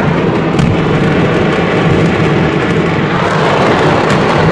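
Mass detonation of a fireworks stockpile: a continuous roar and crackle of fireworks going off together, with a sharper crack now and then. Heard from inside a moving car, so it is mixed with the car's road noise.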